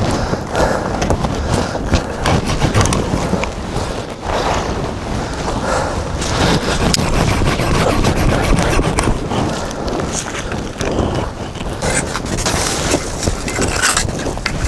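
Continuous rustling, crackling and scraping of pine branches being handled and laid in deep snow, with snow crunching.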